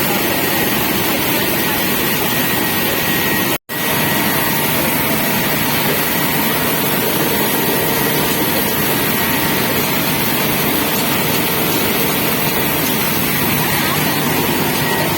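Rice mill machinery running: a loud, steady noise with a constant hum, which cuts out for a split second about three and a half seconds in.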